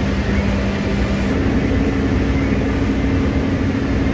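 A vehicle in motion: a steady low rumble with an engine or motor hum whose pitch steps up a little over a second in and then holds.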